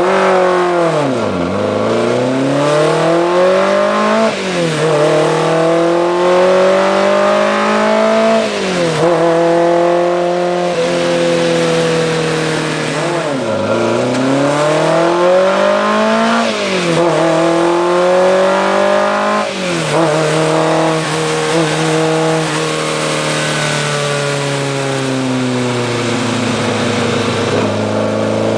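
Alfa Romeo TZ's twin-cam four-cylinder engine being driven hard: its note climbs and then drops back sharply about six times, then settles lower and steadier near the end.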